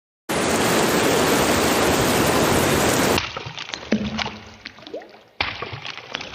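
Rain sound effect being played back: a dense, steady rain hiss for about three seconds, then separate water drips plinking, with reverb and echo added to them.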